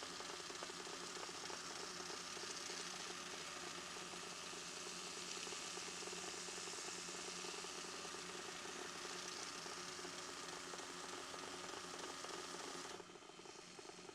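Belt grinder running with the cleaver's face held against a blue Scotch-Brite belt: a steady abrasive hiss over the machine's hum, taking off corrosion. Near the end the hiss drops away sharply, leaving a quieter hum.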